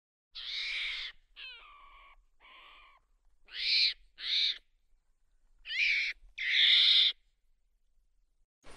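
A series of about seven short, shrill animal calls with near silence between them, some with a quick wavering pitch. The loudest come in pairs around four seconds in and again near the end, the last being the longest.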